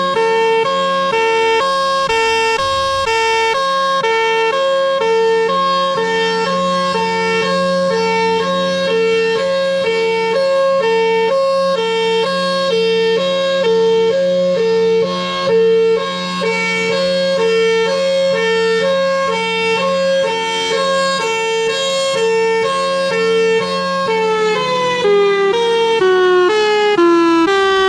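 Federal Signal Thunderbolt 1003 outdoor warning siren sounding a hi-lo signal, alternating steadily between two tones over a steady low hum. Near the end the pitch starts to fall as it alternates: the siren is beginning to wind down.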